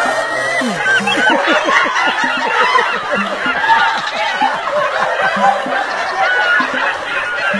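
A man laughing hard and continuously in loud, rapid 'ha-ha' bursts.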